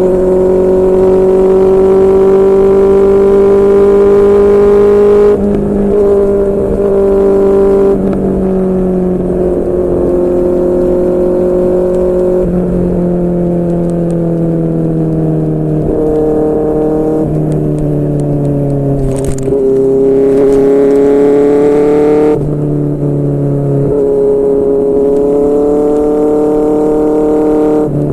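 QJMotor SRK600's inline-four engine through a Yoshimura R11 exhaust, running at steady cruising revs. The pitch eases and then jumps to a new level several times, as with gear changes or throttle changes. There is a brief sharp click about two-thirds of the way through.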